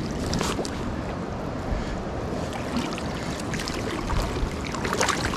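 Wind on the microphone and lake water lapping, with a couple of short splashes, one just after the start and a louder one near the end.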